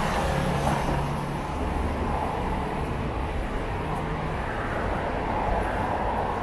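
Steady city road traffic: vehicle engines running past with a continuous low hum.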